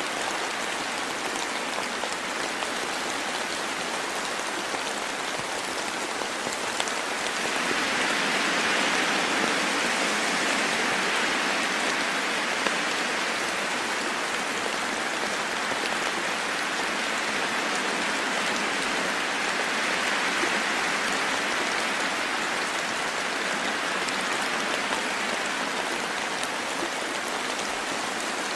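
Steady rain falling in a forest, a dense patter with a few scattered drop ticks. It swells louder about eight seconds in and again near the middle.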